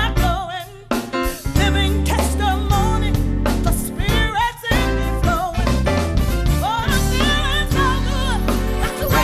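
Live gospel-soul song: a woman's lead vocal, sung with a wide vibrato, over bass and drum kit.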